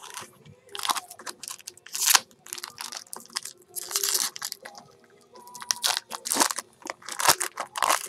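Foil wrapper of a baseball card pack crinkling and tearing as it is ripped open by hand, in irregular bursts.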